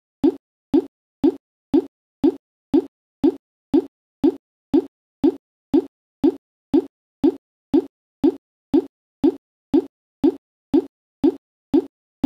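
A short, low plop-like blip repeated at a perfectly even pace, about two a second, with silence between each.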